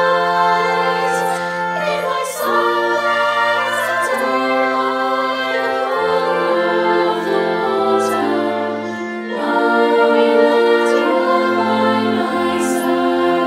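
Slow choral music: a choir singing held chords that shift every second or two.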